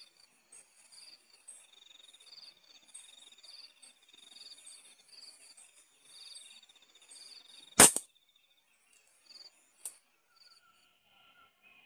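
Crickets trilling in a steady pulsing chorus. About eight seconds in comes the single sharp crack of a .177 air rifle shot, much the loudest sound here. A fainter click follows about two seconds later.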